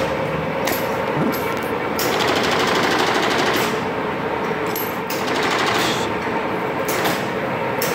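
Kingston hollow spindle engine lathe running: a steady, rapid mechanical clatter from its drive and gearing, with brighter hissing surges every second or so.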